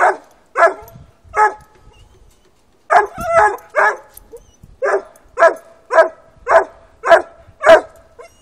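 Four-month-old black and tan coonhound pup tree-barking at a caged raccoon: a steady string of short barks, about two a second, with a pause of a second and a half about a second in, then a quick double bark before the barks even out again.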